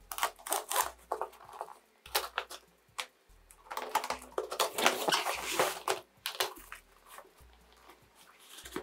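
Cutter blade slicing through packing tape and plastic wrap on a cardboard box: a run of short scratchy strokes and crinkling, with a longer stretch of continuous cutting around the middle.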